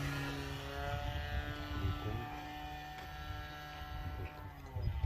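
RC model airplane's carbureted engine running steadily in flight, its pitch sagging slightly and fading as the plane moves off. The pilot reckons the engine wants its idle or mixture needle leaned a click or two.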